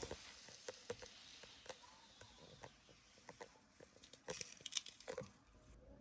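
Faint, scattered light taps and clicks of small toy figures being handled and set down on a table, with a short cluster of louder taps about four to five seconds in.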